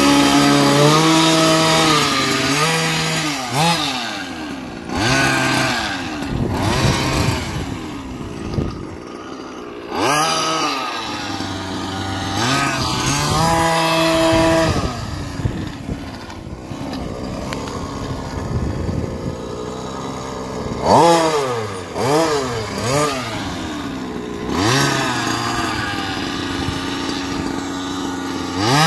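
King Motor X2 1/5-scale RC truck's 36cc two-stroke petrol engine, idling steadily near the start, then revving up and down again and again as the truck is driven, its pitch climbing and falling with each burst of throttle.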